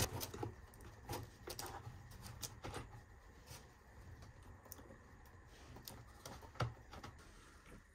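Scattered light clicks and rattles of a chainsaw chain being handled and seated into the guide bar's groove, with a sharper knock right at the start and another about six and a half seconds in.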